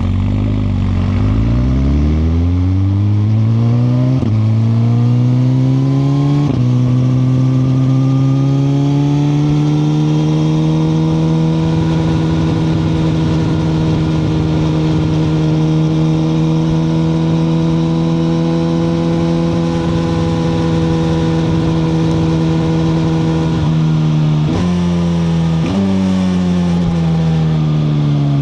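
2021 Suzuki GSX-R1000R's inline-four engine under way. It pulls up through three quick upshifts in the first few seconds, then holds a steady cruise. Near the end the rider downshifts about three times, each one kicking the revs up, and the pitch falls as the bike slows.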